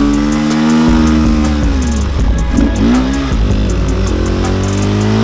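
Enduro motorcycle engine running under load, its revs holding, then dipping and jumping quickly up and down with the throttle in the middle, then climbing again near the end.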